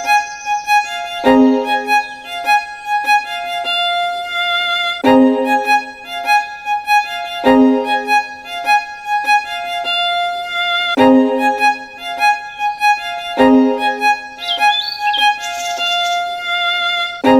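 Background music: a violin melody in repeating phrases, each opening with a strong low note every few seconds.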